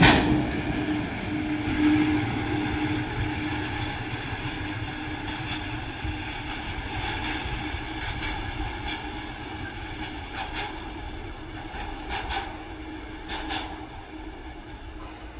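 Freight train of tank wagons rolling away on the track, its wheels clicking now and then, often in close pairs. The rumble fades steadily as the train recedes.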